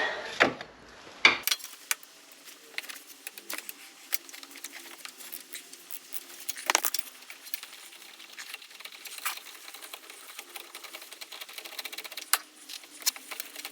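Ratchet wrench clicking in quick runs while the front axle's flange bolts are turned out with a long socket extension, with a few sharper metal clinks of the tools.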